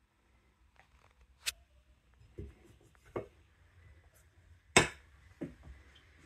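Metal TV stand brackets and legs knocking and clicking against the plastic back of a flat-screen TV as they are handled and fitted: about five sharp knocks spaced out, the loudest near the end.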